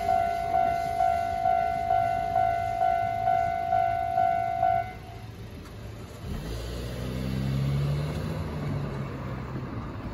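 Japanese railway level-crossing warning bell ringing, an electronic ding repeating about twice a second, which stops about five seconds in. About a second later a vehicle engine starts up, rising in pitch and then running steadily.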